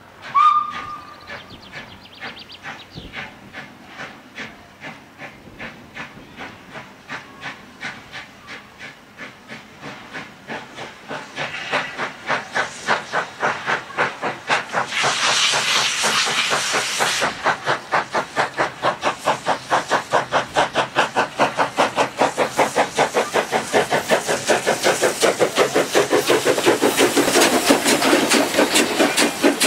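Steam tram locomotive Bello sounds a short whistle, then its exhaust chuffs in an even beat with a hiss of steam as it pulls away. The beats grow louder and quicker as it gathers speed.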